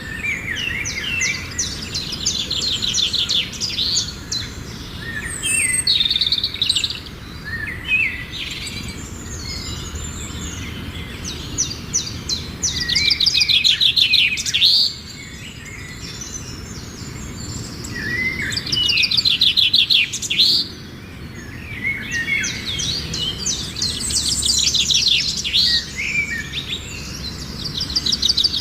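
Small birds chirping and singing in a garden: bursts of rapid trilled notes a second or two long, repeating every few seconds, with single chirps scattered between.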